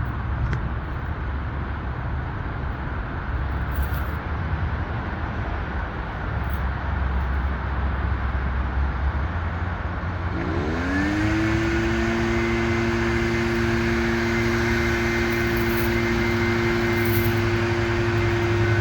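A low rumble of outdoor machinery noise, then about ten seconds in a small electric power tool's motor spins up with a quick rising whine and runs at a steady high pitch, ready to cut a length of steel fence pipe.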